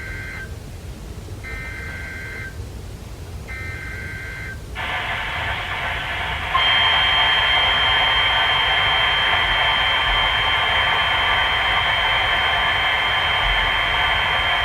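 NOAA Weather Radio emergency alert: three short data bursts of the SAME header, each about a second long, then a hiss, then a loud, steady, rough warning alarm tone from about six seconds in.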